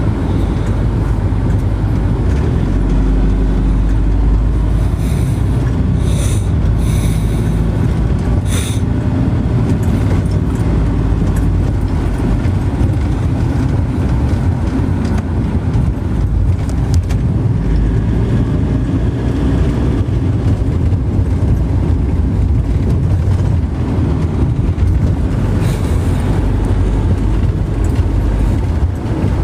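Steady low rumble of a moving vehicle, with a few brief clicks between about six and nine seconds in.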